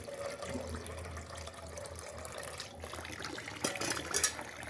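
Water running from a tap pipe into a stainless-steel pot, filling it for boiling. A few short knocks near the end.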